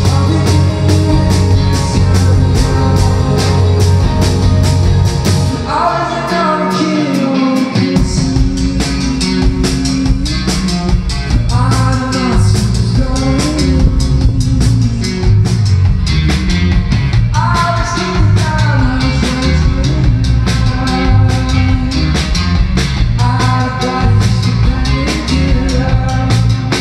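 Rock band playing live: electric guitars, bass guitar and drum kit, with a lead vocal that comes in about six seconds in and sings in phrases every five or six seconds. The bass drops out briefly as the vocal enters, then returns.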